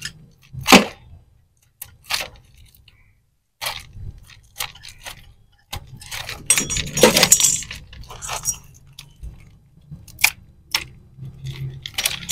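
Hands handling electrical wires and a tape-wrapped copper pipe bundle at the side of an air conditioner outdoor unit: irregular clicks, crackles and rustles, with one sharp click under a second in and the busiest handling from about six seconds in.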